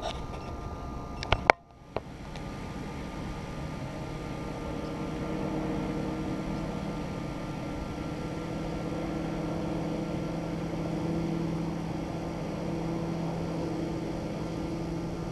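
Boat motor running steadily, its low hum strengthening a few seconds in. Two sharp clicks and a momentary drop-out come just before it, in the first two seconds.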